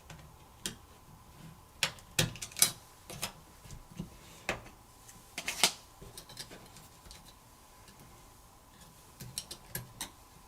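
Irregular sharp clicks and light taps of small tools against the plastic and metal parts of a Samsung Galaxy Z Flip being taken apart. The loudest clicks come between about two and six seconds in.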